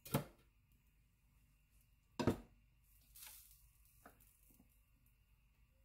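Kitchen handling sounds: two sharp knocks about two seconds apart, then a short scrape and a faint tick, as a ceramic mixing bowl with a spatula in it is picked up beside a waffle maker.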